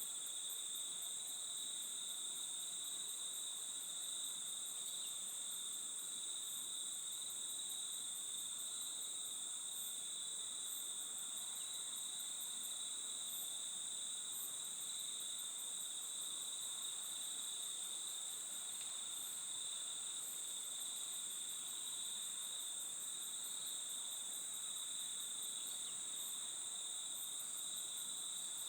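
A steady, high-pitched chorus of insects chirring without a break, with a faster, rhythmic high ticking that comes and goes above it.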